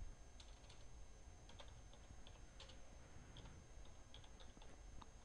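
Faint computer keyboard typing: scattered, irregularly spaced keystrokes over a low steady hum.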